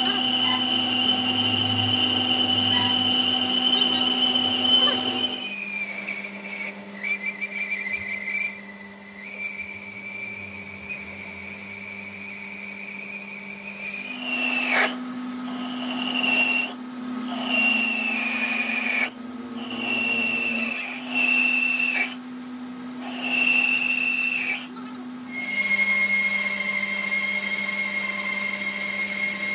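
Metal lathe running while a boring bar cuts inside the bore of a steel gear: a steady motor hum with a high-pitched tool squeal. In the middle the squeal and the loudness come and go in several bursts of about a second each.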